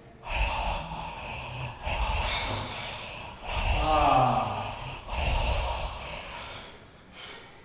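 A man breathing heavily in long, noisy breaths, about four of them, with a groan that falls in pitch about four seconds in.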